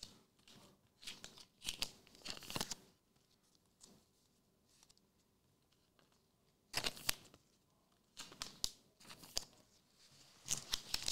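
Trading-card pack wrappers and cards being handled: short bursts of crinkling and tearing, with a few seconds of near-quiet in the middle.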